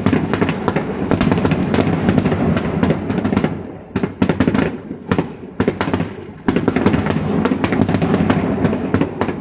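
Fireworks display: a dense run of bangs and crackling bursts, thinning to separate bangs about four seconds in, then thick again from about six and a half seconds.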